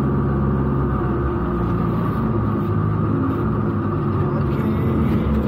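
Rally car's engine running steadily without revving, heard from inside the cabin.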